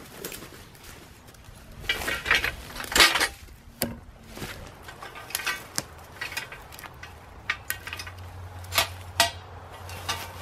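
Manual post driver slamming down on a steel fence post being driven into the ground: a series of sharp metal clanks at uneven intervals, the loudest cluster a couple of seconds in.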